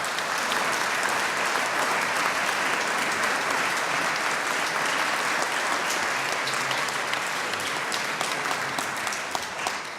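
Audience applauding in a large hall, a steady round of clapping that swells at the start and fades out near the end.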